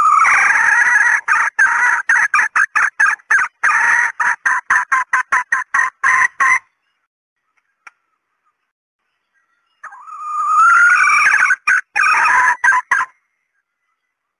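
Female red junglefowl calling in two bouts of quickly repeated, broken cackling notes. The first bout lasts about six and a half seconds and its notes come faster toward the end. After a gap, a shorter second bout starts about ten seconds in. It is a hen's call of the kind played to lure wild junglefowl.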